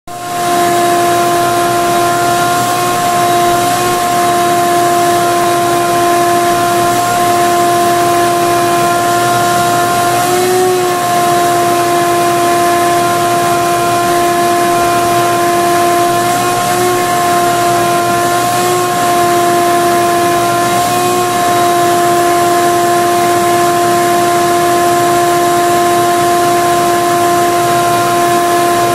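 Shop-Vac wet/dry vacuum running steadily: an even motor whine over the rush of air, wavering slightly in pitch a few times.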